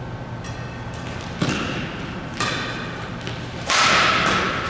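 Badminton rackets striking the shuttlecock in a doubles rally: three sharp hits about a second apart, the last one, near the end, the loudest and ringing on in the echoing sports hall.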